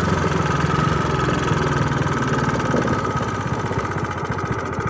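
Motorbike engine running steadily, a fast even beat with a steady whine above it.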